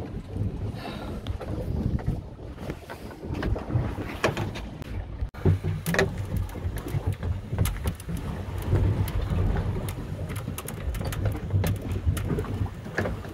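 Steady low rumble of a fishing boat at sea, with wind buffeting the microphone, broken by scattered clicks and knocks from handling gear. There is a brief dropout about five seconds in.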